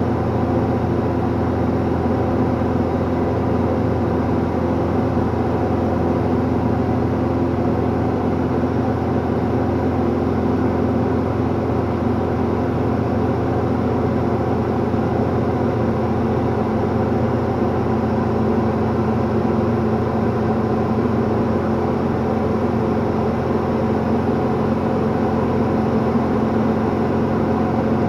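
Esqual VM-1 light sport aircraft's engine and propeller droning steadily inside the cockpit during a climb, an even hum with no change in pitch or level.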